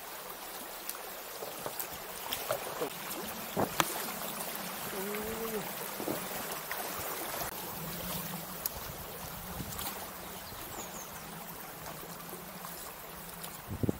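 Shallow river current rippling and rushing around an inflatable stand-up paddleboard as it is paddled downstream, with paddle strokes in the water. A few sharp knocks, the loudest about four seconds in and near the end.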